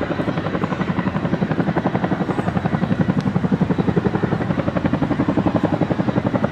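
RAF Chinook HC6A tandem-rotor helicopter in flight, its two three-bladed rotors beating out a fast, even blade slap. The pulsing grows louder about halfway through as the helicopter comes closer.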